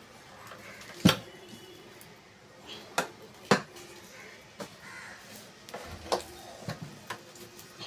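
Scattered sharp knocks and clicks, about six in all and the loudest about a second in, as metal stove parts and tools are handled and set down.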